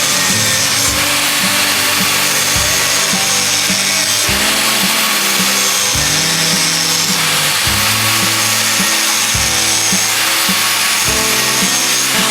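Background music with a steady beat and a stepping bass line, over a continuous hissing power tool working metal.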